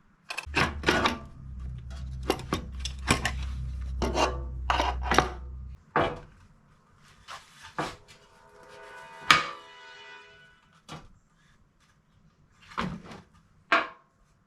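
Metal hardware and tools clicking and clinking as they are handled, with one ringing metallic clink about nine seconds in. A low steady hum runs under the clicks for the first six seconds or so, then stops.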